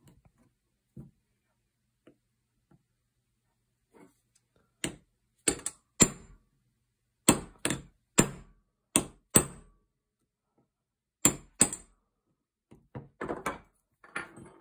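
Small hammer tapping a brass punch to drive a pin into a Yildiz 20-bore shotgun's trigger group: about a dozen sharp metallic taps in small groups, with a light ring. Near the end there are softer clicks as the parts are handled.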